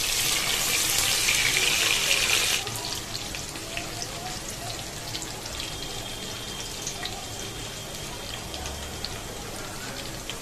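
Sliced onions and whole spices frying in hot oil: a loud sizzle for the first two and a half seconds, then it drops suddenly to a quieter, steady sizzle with light crackles.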